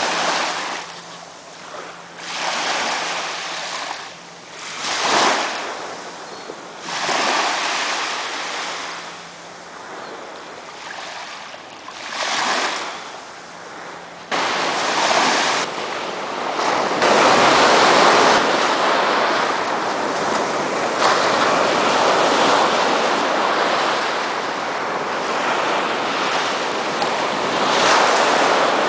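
Small waves breaking and washing up a sandy shore, coming in surges every couple of seconds. About halfway through the sound jumps to a louder, steadier rush of surf with wind.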